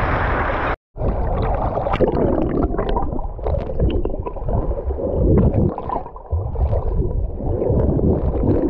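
Water sloshing and gurgling right at the microphone, muffled and churning, with scattered small bubbly clicks. It comes in after about a second of wind and surf and a sudden short cutout.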